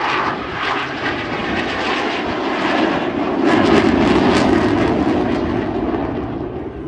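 Spitfire and Eurofighter Typhoon flying past together in formation. The engine sound is loud and swells to a peak about three and a half seconds in, then fades away.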